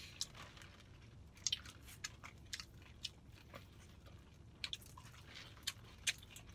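A person chewing a mouthful of taco, faint and close, with a scattering of small, irregular mouth clicks.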